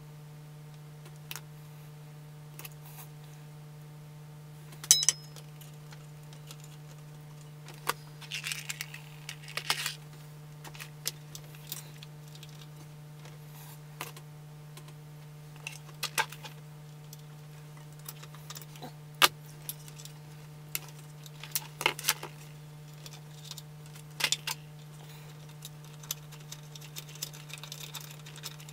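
Scattered light clicks and taps of small metal parts being handled, a transistor with its mica insulator and screws being fitted to an amplifier's heatsink, with the sharpest clicks about 5 and 19 seconds in. A steady low hum runs underneath.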